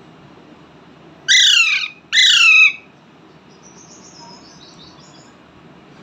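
Alexandrine parakeet giving two loud calls in quick succession, each about half a second long and falling in pitch. Faint high chirps follow a second or so later.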